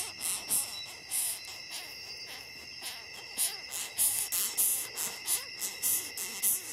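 Longhorn beetle stridulating: short, high-pitched squeaks about twice a second, quickening to about three a second from about four seconds in, over a steady high-pitched hum.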